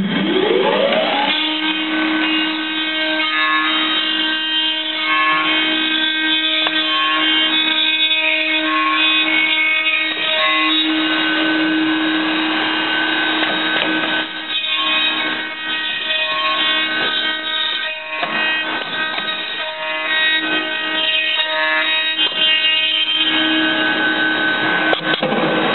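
Electric motor of a CSJ-500B CNC dovetail tenoner starting up, its whine rising in pitch over about a second, then running steadily with a hum and overtones that waver and dip a few times.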